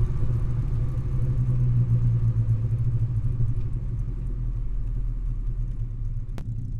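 Exhaust of a 1970 Alfa Romeo Giulia 1300 TI's twin-cam four-cylinder engine idling steadily, close-miked at the tailpipe. A single sharp click comes near the end.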